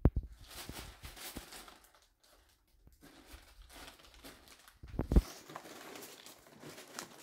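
Rustling of a packed kite's fabric bag being handled, with a sharp knock at the start. About five seconds in comes a heavier thump as the bagged kite is set down on a cardboard box.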